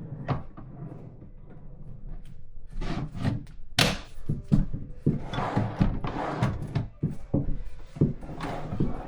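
Irregular knocks and thunks of flat-pack furniture panels and drawer parts being handled and fitted. There is a sharp knock about four seconds in, and longer scraping noises in between.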